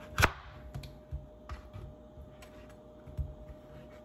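Kitchen knife cutting peeled pumpkin on a plastic cutting board: one sharp knock against the board near the start, then a handful of lighter taps and knocks, over a faint steady hum.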